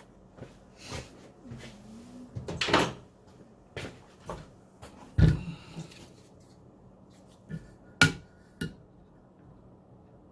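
Irregular clicks and knocks of tools and parts being handled and set down on a workbench. A heavier thump comes about five seconds in, and a sharp metallic click with a short ring about eight seconds in.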